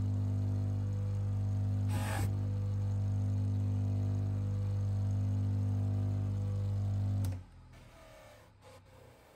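Bench polishing motor running with a steady electrical hum while a watch case back is given a light buff on its cloth mop, with a brief scuffing hiss about two seconds in. The hum cuts off sharply about seven seconds in.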